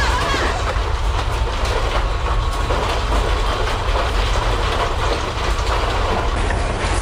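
Building shaking in an earthquake: a steady heavy rumble with continuous rattling and clattering of office furniture and fittings.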